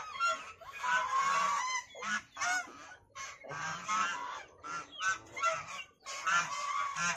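A flock of white domestic geese honking, several birds calling at once in runs of short, repeated honks that overlap, with brief pauses about two, three and six seconds in.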